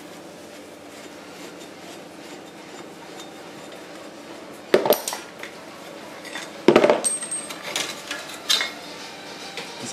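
Steel spanner clinking against the bolt and metal parts of a small lawn mower engine as the bolt is worked loose: a few sharp metallic clanks, one near the middle and two more toward the end, with quiet handling between.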